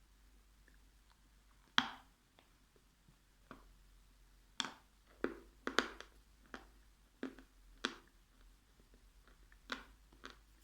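Dried edible clay being bitten and crunched in the mouth. There are about eight sharp, separate crunches at irregular intervals, clustered in the middle.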